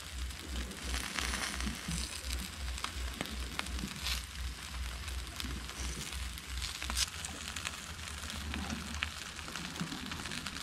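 Whole mackerel sizzling on a hot charcoal barbecue grill, a steady hiss with scattered small pops.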